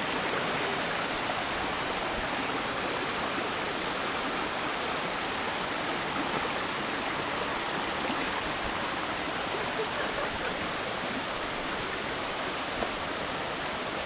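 Rushing water of a rocky mountain stream pouring over boulders and small cascades: a steady, even rush.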